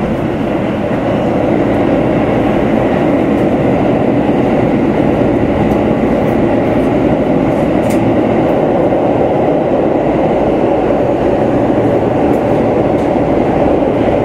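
Tokyo Metro Ginza Line 1000-series train running through the tunnel, heard from inside the car: a steady, even rumble of wheels on rail and running gear, with a faint steady whine above it.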